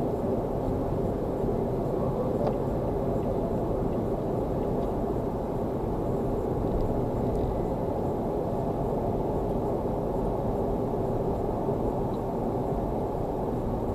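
Steady road and engine noise heard inside a car cruising on an expressway: an even low rumble of tyres and engine with a faint steady hum, no change in speed.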